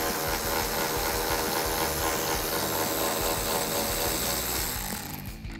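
Cordless power driver with a T30 Torx bit running steadily as it backs out a cowl bolt, stopping about five seconds in.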